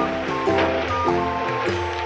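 Instrumental music: held chords that change about every half second over a steady hiss.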